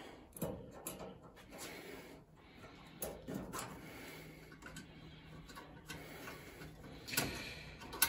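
Faint scattered clicks and rustling of a dryer's wire harness being pulled out of plastic wire holders, with a sharper snap near the end.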